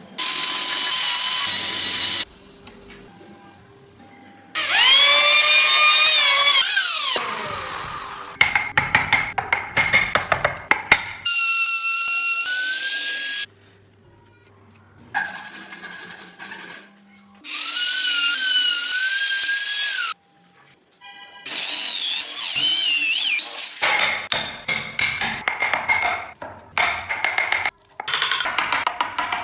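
Power tools cutting and shaping wood in a string of short bursts that start and stop abruptly: high-pitched motor whines that rise and fall, one winding down about seven seconds in, alternating with gritty grinding and quieter gaps.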